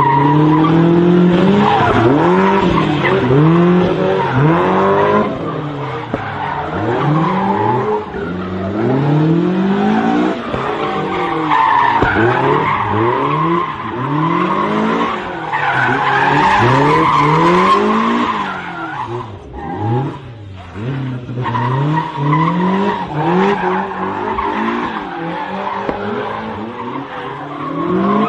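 A car doing donuts: its engine revs up and down over and over, about once a second, while its tyres squeal and skid on the pavement.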